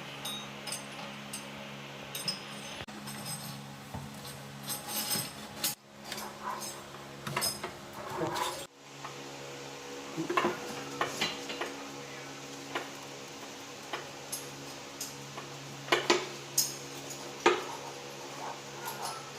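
Scattered clinks and knocks of small hard objects being handled, with several sharper knocks in the second half, over a steady low hum.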